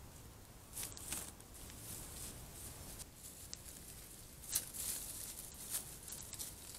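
Faint, scattered rustles and soft crunches of deer stepping through dry grass and leaves, a handful of irregular steps with the loudest about four and a half seconds in, over the steady hiss of a trail camera's microphone.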